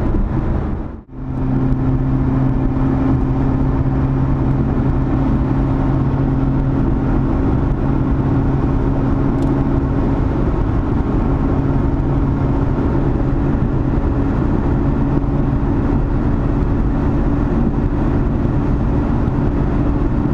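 Lotus Evora GT's supercharged V6 engine and road noise heard from inside the cabin, a steady drone at an even cruising speed. The sound drops out briefly about a second in.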